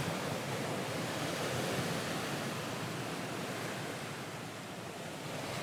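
Ocean waves washing on a shore, a steady rushing that swells and ebbs gently.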